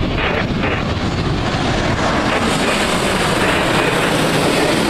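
Japan Airlines Boeing 787 passing low overhead on landing approach with gear down, its twin jet engines giving a loud steady rumble and rush that grows brighter and hissier from about two seconds in.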